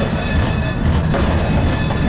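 Stadtbahn light-rail car running along street track, heard from the driver's cab: a steady low rumble with several steady high tones over it.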